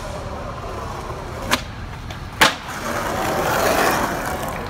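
Skateboard going down a concrete stair set: the tail pops with a click about a second and a half in, the board lands with a loud smack just under a second later, and the wheels then roll away on concrete.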